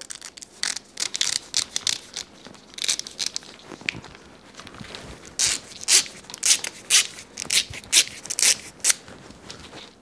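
Corrugated plastic split-loom tubing crackling and rasping as it is drawn along a 3D-printed loom tool that spreads its slit and feeds the wire inside. It is an irregular run of quick clicks, louder and busier in the second half.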